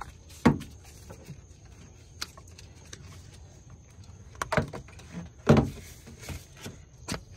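Plastic coolant reservoir knocking against engine-bay parts as it is handled into place and its hose pushed onto the outlet: a sharp knock about half a second in, a cluster of louder knocks between about four and a half and five and a half seconds, and one more near the end.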